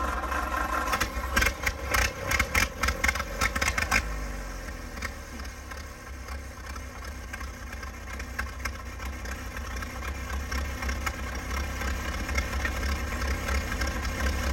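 Ford Model A four-cylinder flathead engine in a 1920s Cletrac crawler running unevenly with loud, irregular firing for the first few seconds, then settling into a quieter, steady idle about four seconds in.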